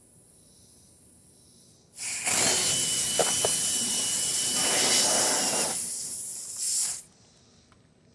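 Air hissing loudly out of a car tire's nail puncture as a reamer or plug tool is worked into the hole, with a faint steady whistle in it. It starts about two seconds in, runs for about five seconds and cuts off abruptly.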